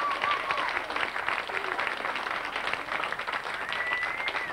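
Audience applauding, with short whistles early on and a longer high whistle near the end.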